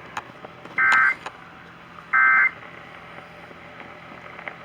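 Emergency Alert System end-of-message (EOM) data bursts: two short, identical buzzy digital screeches about 1.3 s apart, the last two of the three bursts that close an EAS activation. They come through AM radio, with a faint hiss between them.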